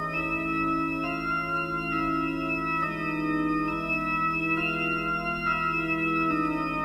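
Background music: sustained organ chords over a steady held low note, with the chord changing about once a second.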